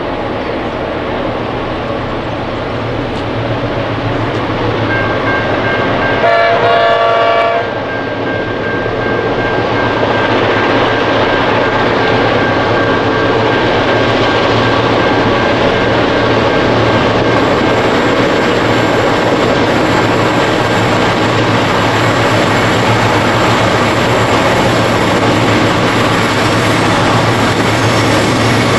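A lash-up of five Clyde/EMD diesel locomotives, a 22 class leading four GM class units, hauling a loaded grain train, their engines running steadily as it approaches. The lead locomotive's air horn sounds one chord lasting about a second and a half, about six seconds in.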